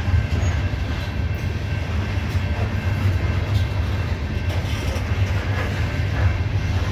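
CSX coal hopper cars rolling past on the rails, a steady low rumble of wheels and cars that does not let up.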